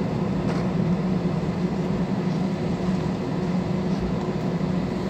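Steady airliner cabin noise: the engines and airflow make an even low drone.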